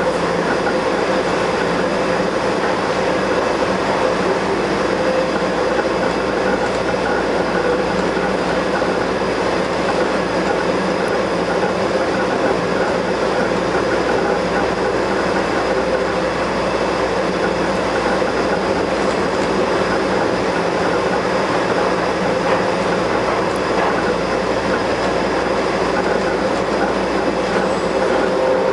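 Bombardier rubber-tyred Wenhu line metro train running at a steady speed: a continuous rumble and hiss with a steady tonal whine held through it. This train makes an abnormal noise while running, which the uploader notes has appeared on the Bombardier trains as they have aged.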